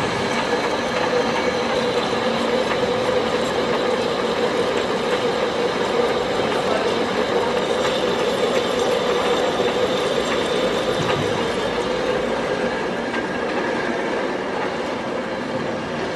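Heavy-duty lathe running: a steady whir of gears with a wavering hum and a thin high whine.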